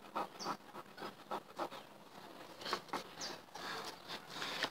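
Scratch-off lottery card being scratched: a run of short, irregular scraping strokes across the card's play area.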